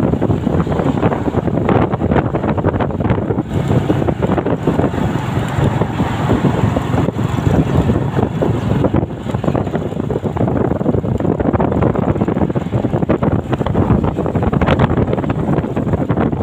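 Wind rushing over the microphone of a moving motorcycle, with engine and road noise underneath, steady throughout.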